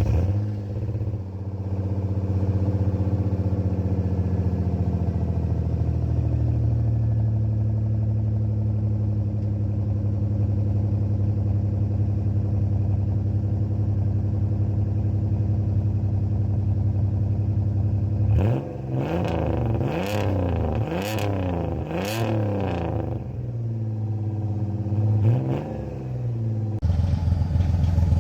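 Car engine catching just as it starts, then idling, its idle speed dropping and settling over the first several seconds. Four quick throttle blips follow in close succession around two-thirds of the way through, with one more a few seconds later, then the engine sound jumps louder near the end. The exhaust has had its catalytic converter removed and has a leak.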